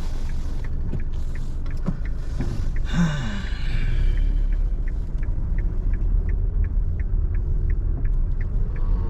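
Inside a car: steady low rumble of the engine and road, with the indicator relay ticking evenly about twice a second. A short swish with a falling tone passes about three seconds in.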